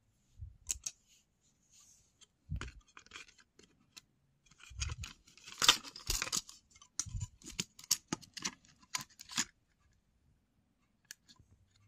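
Plastic parts of a disassembled Lyft car sign being handled: irregular clicks, knocks and scrapes as the curved plastic cover is lifted off and moved about, loudest in a dense clatter a little past halfway. The handling stops about two seconds before the end.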